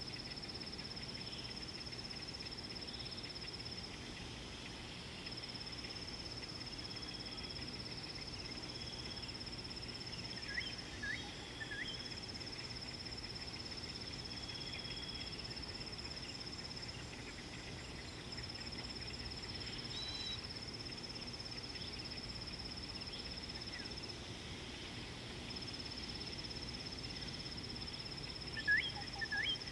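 An insect trilling at one steady high pitch in long phrases of several seconds, broken by short gaps, over a low background hiss. A bird adds a few quick rising chirps about eleven seconds in and again near the end.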